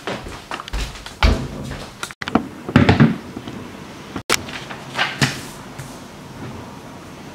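A few short knocks and handling clatters, with a door being moved near the start. The sound drops out abruptly twice.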